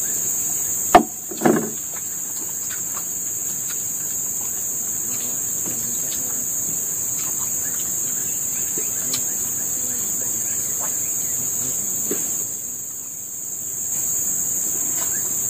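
A steady, high-pitched chorus of forest insects, with crickets the likely callers. The chorus thins briefly about three-quarters of the way through. A sharp knock comes about a second in, followed by a short clatter.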